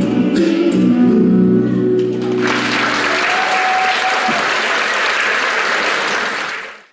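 A song ends on held notes, then an audience applauds steadily for several seconds before the sound fades out.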